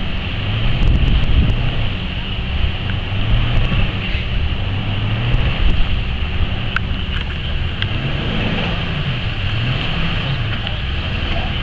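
A Jeep's engine revving up and down as it ploughs through deep flood water, with water splashing and wind buffeting the microphone.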